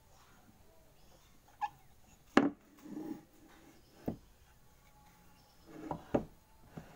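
Wooden boards and a wooden jig being handled on a bandsaw table: four or five sharp wooden knocks, the loudest about two and a half seconds in and another strong one near the end, with softer scraping and sliding between them.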